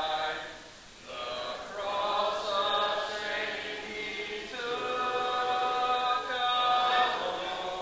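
A congregation singing a hymn a cappella, without instruments, led from the front: long held notes in phrases, with a short pause between phrases about a second in.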